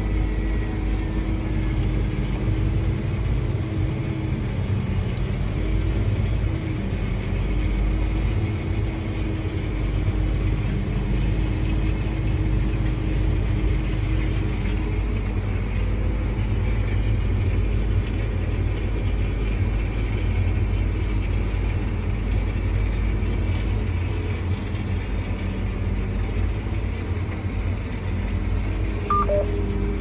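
Tractor engine running steadily, heard from inside the cab as a low drone with steady hums. A short, faint high chirp comes near the end.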